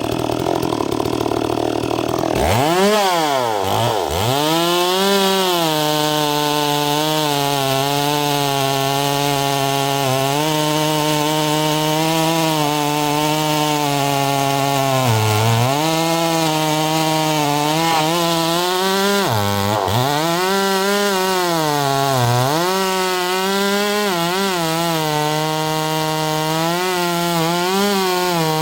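Two-stroke 45 cc chainsaw revving up about two seconds in, then running at full throttle and cutting oak. Its pitch sags each time the chain bites in and climbs again as it frees. The owner says the saw is still not right and suspects a bad carburettor.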